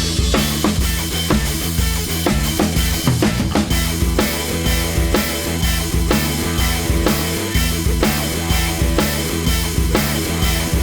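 Background music: a rock-style track with a steady drum-kit beat over bass and guitar.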